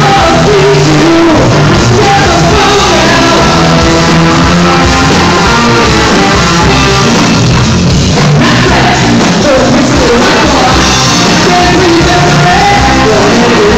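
Live rock band playing loud, with a sung lead vocal over the band.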